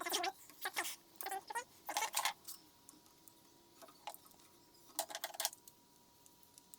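Several short bursts of rapid clicking and rattling, as of small parts or tools being handled, over a faint steady high-pitched tone.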